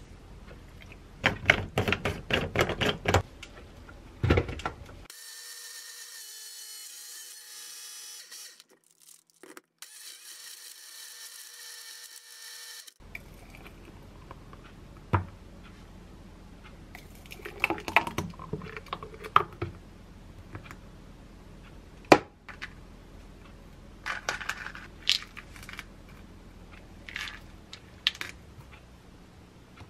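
Small blender running for about eight seconds, with a short break partway, as it blends strawberries, milk and yogurt into a smoothie. Before it comes a run of clicks and knocks as the jar is handled, and after it scattered clinks and taps of glassware as the smoothie is poured and topped.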